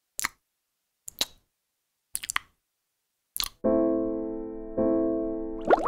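Four sharp clicks about a second apart, then sustained electric-piano chords of background music come in a little past halfway, changing chord about a second later. A burst of quick gliding sounds starts at the very end.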